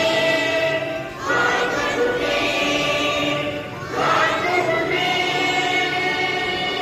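A large group of schoolchildren singing a prayer together in unison, in long held phrases that break briefly about a second in and again about four seconds in.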